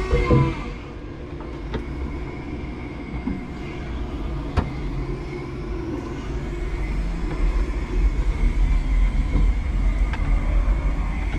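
A 5-ton electric forklift truck driving, heard from inside its cab: a steady low rumble with a faint steady whine. There is a sharp knock about four and a half seconds in, and the rumble grows heavier over the last few seconds.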